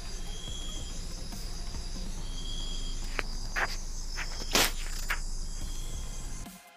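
Insects chirping steadily, with a short high note repeating about every two seconds, while a cardboard earphone box is slid open and handled, giving a few sharp clicks and taps about three to five seconds in. The sound cuts off abruptly near the end.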